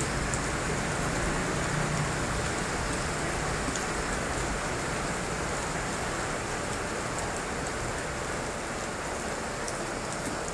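Steady rain falling, an even hiss with a few faint ticks of drops.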